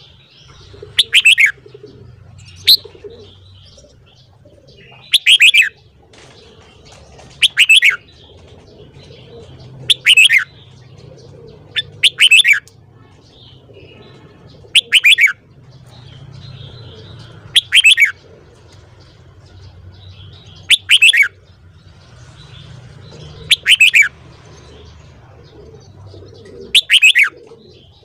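Red-whiskered bulbul singing: short, loud, bright song phrases, each under a second, repeated about every two and a half to three seconds, eleven times in all.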